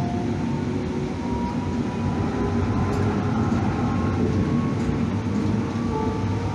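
Calgary CTrain light-rail car running along the track, heard from inside: a steady rumble of wheels and motors with faint whining tones that drift slightly in pitch.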